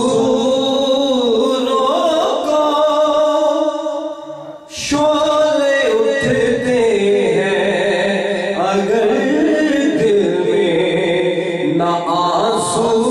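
A man singing an Urdu ghazal solo into a microphone, in long drawn-out notes that waver and slide in pitch, with a short break about four seconds in.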